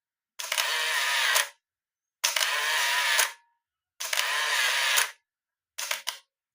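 Canon AF35M 35mm compact camera firing repeatedly. Each frame is a shutter click followed by about a second of the built-in motor whirring the film on to the next frame. This happens four times, the last winding cut shorter.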